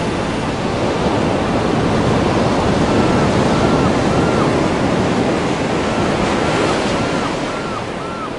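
Ocean surf: a steady wash of breaking waves. From about three seconds in, faint short high-pitched calls repeat about twice a second.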